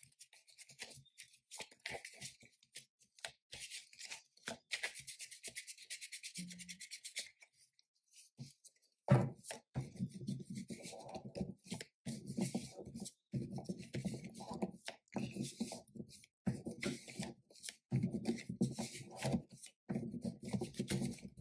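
A deck of tarot cards being shuffled by hand: a papery rustle with many small card clicks. It stops briefly about a third of the way through, then goes on with a duller, lower shuffling sound.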